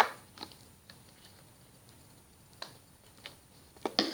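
Glossy, stretchy slime being squished and pulled by hand, giving a few scattered sharp clicks and pops, the loudest right at the start.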